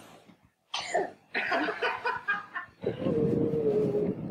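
A child's short sharp puff of breath about a second in, blowing out a birthday candle, followed by laughter and voices, with one drawn-out cry near the end.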